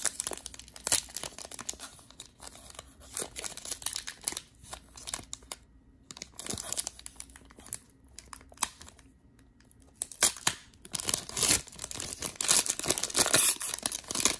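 Foil wrapper of a trading card pack being torn open by hand, crinkling and crackling in irregular bursts. It is densest and loudest over the last few seconds as the wrapper is pulled apart.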